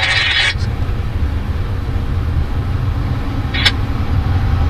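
Low, steady rumble of an approaching Canadian Pacific diesel freight locomotive. A hiss cuts off about half a second in, and a single short click comes about three and a half seconds in.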